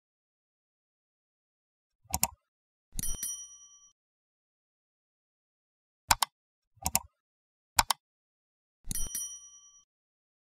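Sound-effect clicks and a bright bell ding: one click then a ding, then three clicks and a second ding, each ding a short ring with several pitches that dies away in under a second.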